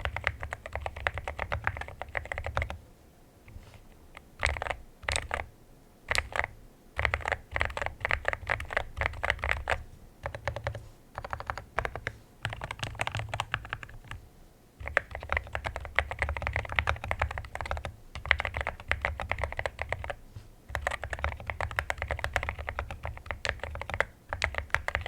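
Typing on a mechanical keyboard fitted with Akko Rosewood switches: fast runs of deep, thocky keystrokes in bursts of a few seconds, with short pauses and a few single presses between them.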